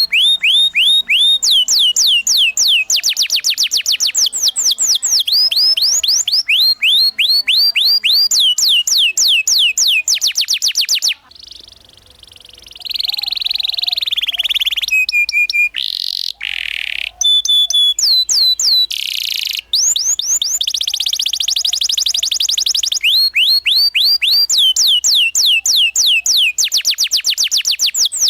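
Canary singing fast rolls: the same high whistled note swept downward over and over, several times a second. About eleven seconds in the rolls break off for a brief pause and a few different chattering and buzzy phrases, then the rolls resume.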